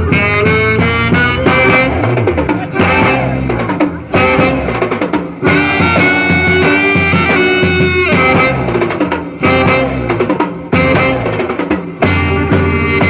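Instrumental passage of a festa junina quadrilha song: a melody line over a drum kit beat, between sung verses.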